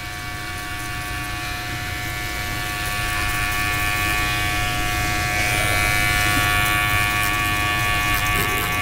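Electric hair clipper buzzing at a steady pitch as its blade cuts hair close against the scalp, getting louder over the first few seconds.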